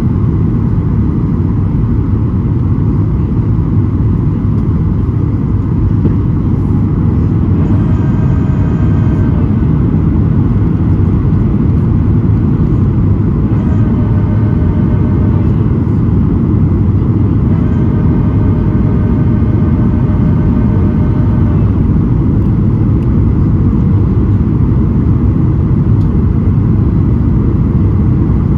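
Steady cabin roar inside a Boeing 737-800 descending on approach: its CFM56-7B jet engines and the airflow, heard from a window seat by the wing. Three times a fainter, higher whine of several steady tones comes in for a second to a few seconds, about a third of the way in and twice past the middle.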